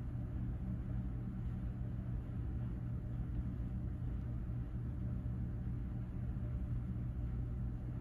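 Leslie Locke Play It Again Sam ceiling fan running: a steady, even low hum with no knocks or clicks.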